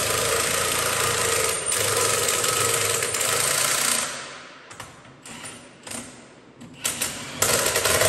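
Milwaukee 3/4-inch impact wrench rattling as it runs lug nuts onto a sprayer wheel on a light setting. It runs in a long burst, stops about four seconds in, gives a few short blips, then runs again near the end.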